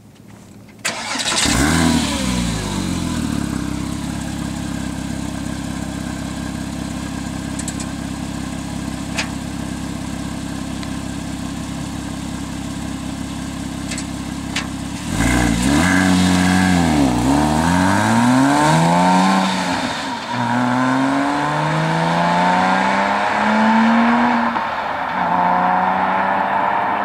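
Porsche Boxster S 3.4-litre flat-six engine and exhaust. A rev comes in about a second in and falls back, and the engine then runs steadily. About halfway through it is revved up and down twice, then pulls hard through several upshifts, its pitch climbing in each gear and dropping at each shift.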